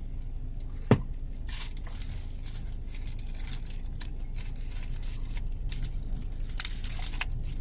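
Plastic packaging being handled and opened, with scattered crinkles and tearing rustles, and a sharp click about a second in.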